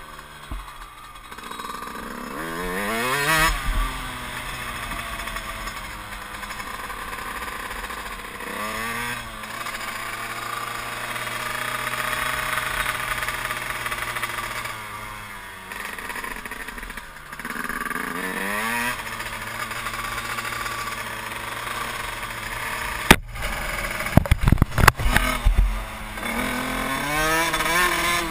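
Yamaha YZ125's two-stroke single-cylinder engine heard from on board while riding, its revs climbing and dropping back several times with the throttle. Several sharp knocks come about two-thirds of the way through.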